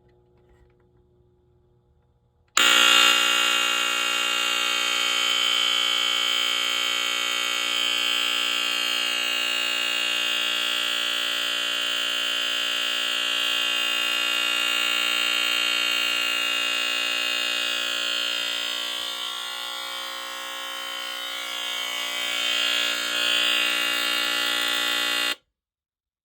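A 1979 NuTone S-190 smoke alarm sounding its horn on test: one continuous, steady tone with many overtones, starting about two and a half seconds in and lasting about 23 seconds. It dips slightly in loudness a few seconds before it cuts off suddenly near the end.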